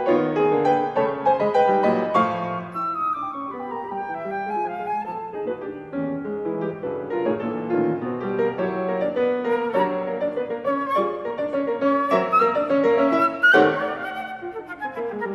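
Concert flute and Steinway grand piano playing classical music together, the flute carrying a melody of shifting notes over the piano accompaniment, with a rising run about 12 to 13 seconds in.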